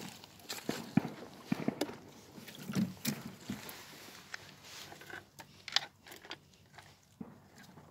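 Scattered clicks, knocks and rustles of close handling as a hand works inside the open hull of a small RC boat. The noises are irregular, bunch up around the middle and grow sparser near the end.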